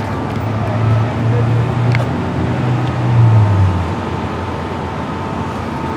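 A motor vehicle engine running close by, a low hum that swells and then fades out about four seconds in, with a faint steady whine underneath and a single click about two seconds in.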